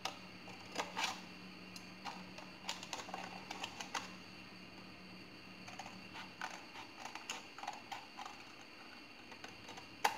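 Scissors snipping through a thin plastic bottle: a run of irregular, sharp cutting clicks.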